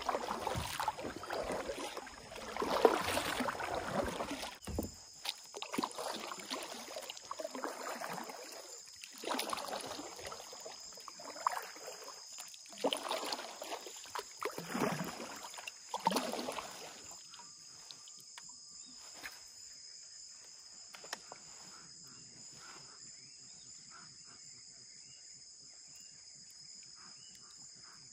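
Kayak paddle strokes swishing and splashing through the water about every one and a half to two seconds, stopping about two-thirds of the way through. A steady high-pitched insect chorus goes on underneath and is left alone after the paddling stops.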